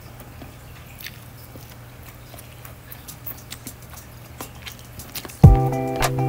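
Faint clicks and soft wet sounds of wooden chopsticks lifting and stirring rice noodles in a bowl. About five seconds in, background music comes in loudly with a heavy beat.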